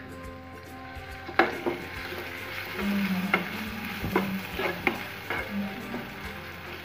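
Chopped garlic and ginger sizzling in a little hot white oil in a non-stick frying pan. From about a second and a half in, a spoon stirring them clicks and scrapes against the pan several times.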